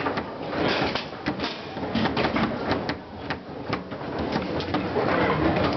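Foosball play: irregular sharp clicks and knocks of the ball tapped between the plastic men and of the rods knocking in the table, over a steady background hubbub.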